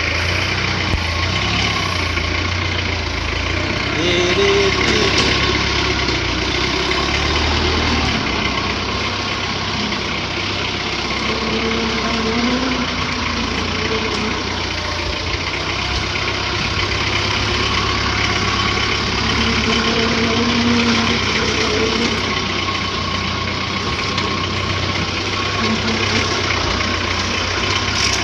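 XGMA XG530 forklift's engine running steadily with a low hum as the forklift is driven slowly.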